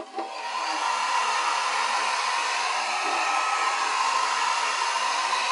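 Small handheld hair dryer switched on and blowing steadily. It comes up to full blow within the first half second, then holds an even rushing noise.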